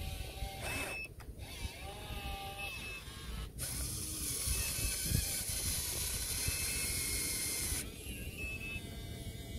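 Electric motors of a radio-controlled excavator whining in short gliding tones as the arm lifts and swings a load of wet mud over a dump truck. A steady hiss starts about three and a half seconds in and cuts off suddenly about eight seconds in.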